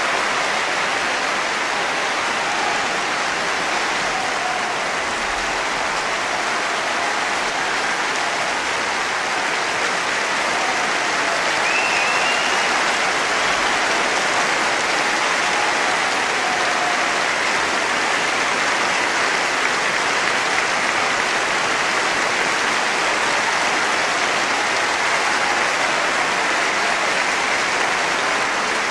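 Large concert-hall audience applauding, a dense, steady clapping that holds at one level throughout.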